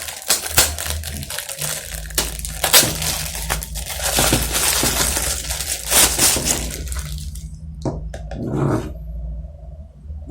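Packaging crackling and rustling with many sharp clicks as a water tank overflow alarm unit is unwrapped and taken out of its box, easing off to a few scattered clicks near the end. A low steady hum runs underneath.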